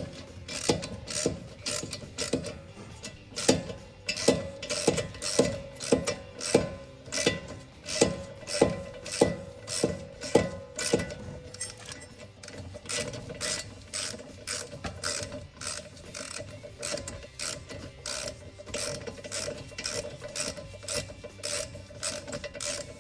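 Hand ratchet clicking through repeated back-and-forth strokes, driving a brake caliper guide pin bolt in with an Allen socket. The clicks are sharper and about two a second at first, then come quicker and softer in the second half.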